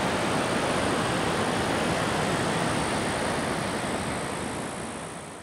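River rapids rushing over rocks: a steady, even wash of whitewater that fades out near the end.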